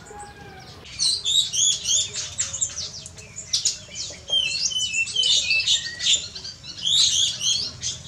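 A flock of white-eyes (Zosterops, pleci) chattering: many short, high chirps in quick overlapping bursts, starting about a second in.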